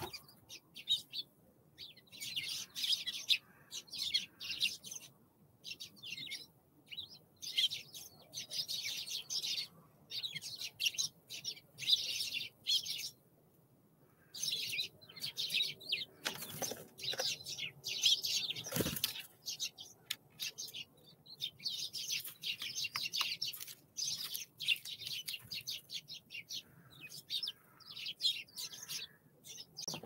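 Wild songbirds calling at a feeder: rapid clusters of short, high chirps, with a lull a little before halfway. A single sharp knock comes about two-thirds of the way through.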